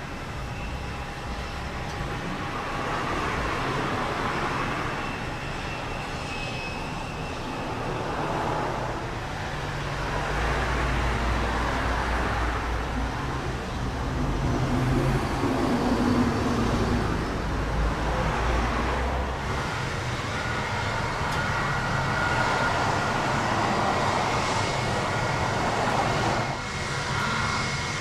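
Airbus A320-232's IAE V2500 jet engines running at low taxi power as the airliner taxis: a steady rumble and hiss that swells and eases, with a faint high whine in the last several seconds.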